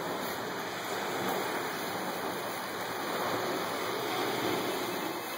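Ocean surf breaking and washing on a sandy shore, a steady rushing sound.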